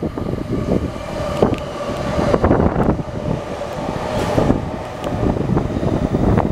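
A 15-car JR East E231 series electric train passing through the station at speed without stopping: rumbling, with repeated clacks of the wheels over the rail joints and a steady faint tone.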